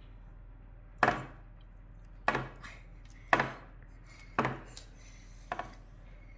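A bowl being knocked or tapped: five sharp knocks about a second apart, each with a brief ring, the last one softer.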